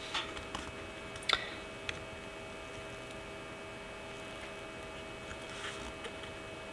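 Steady electrical hum made of several held tones, with a few light clicks in the first two seconds.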